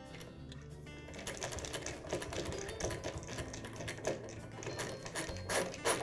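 Hand screwdriver driving a screw back into a saw's plastic handle housing: a fast run of small clicks starting about a second in, a few louder clicks near the end.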